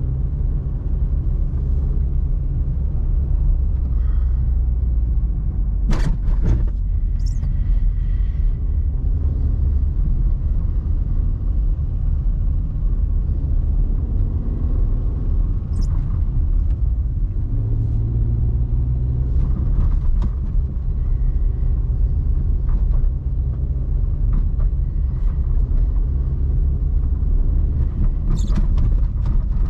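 2005 Opel Meriva with its 1.4-litre, 90 hp four-cylinder petrol engine driving along: a steady low engine and road rumble. A few brief clicks or knocks sound over it, the sharpest about six seconds in and another near the end.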